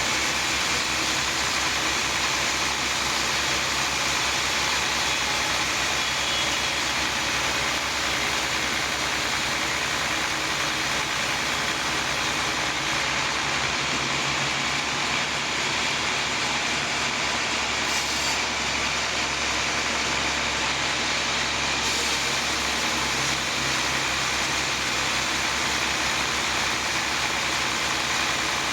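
Sawmill machinery running steadily: an even, continuous engine-like drone and saw noise with no breaks.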